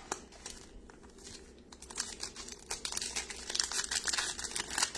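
Foil wrapper of a 2021 Bowman baseball card pack crinkling as it is handled, then torn open by hand. The crackling gets louder and busier about two seconds in.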